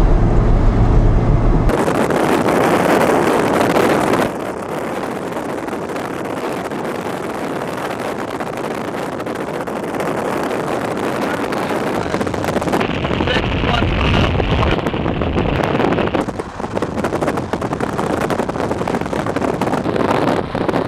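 Strong storm wind rushing over the microphone, starting suddenly about two seconds in after a low vehicle rumble and running on steadily.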